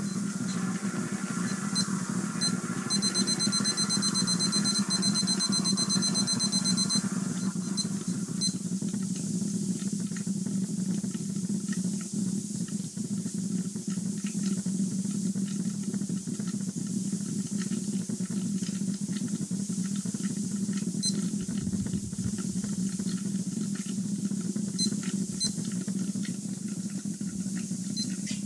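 Plasma electrolysis cell running at about 250 volts: a steady low buzz with hissing and crackling as the glowing electrode arcs under water and boils it into steam. A rapid, high electronic beeping sounds for a few seconds near the start.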